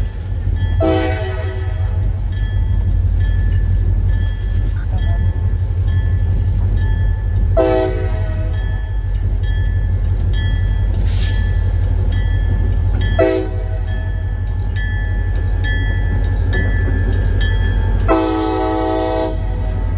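Diesel locomotive horn of a CSX GP40-2 sounding four blasts, long, long, short, long: the grade-crossing signal. Underneath are the low rumble of the train and a bell ringing steadily.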